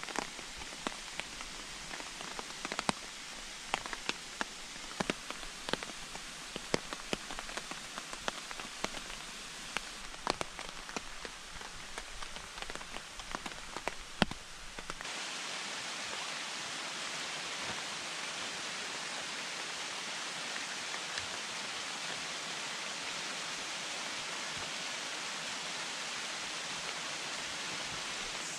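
Rain falling on a tarp overhead: many sharp single drop hits at irregular times over a steady rain hiss. About halfway through this changes suddenly to a steady, even rush of water with no separate drops.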